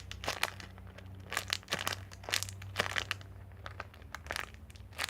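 Plastic packaging crinkling as it is handled, in irregular crackles, over a low steady hum.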